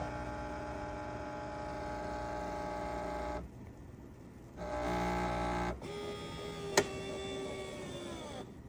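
Bosch 800 Series fully automatic espresso machine working through its espresso stage: its internal motor and pump hum steadily, pause for about a second, start again, then run on with a sharp click about three quarters of the way through and wind down with a sinking pitch just before the end.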